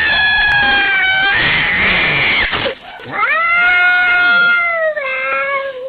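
Angry cat yowling loudly in long, drawn-out wails, with a harsher, noisier cry between them. The last wail sags slowly in pitch.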